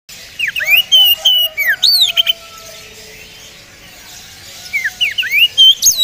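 Oriental magpie-robin singing: two loud bursts of clear whistled phrases with quick up- and down-sliding notes, separated by a pause of about two seconds.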